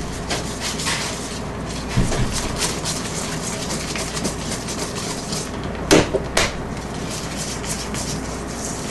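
Wire whisk beating egg yolks into a thick creamed butter and powdered-sugar mixture in a stainless steel bowl. The wires scrape and click rapidly against the metal, with a few louder knocks about two seconds in and twice around six seconds in.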